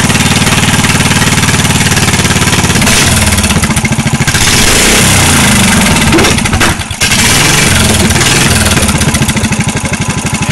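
Racing lawn tractor's small engine running loud: a steady idle, then revved up with the pitch shifting for a few seconds in the middle, a brief dip about seven seconds in, and back to a steady, pulsing idle.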